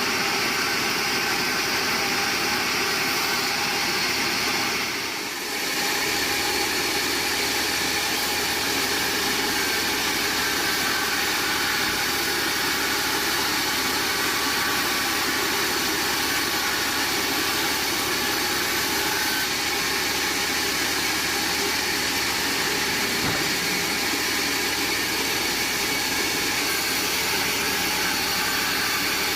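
Band sawmill running: a steady, loud mechanical noise with a brief dip about five seconds in.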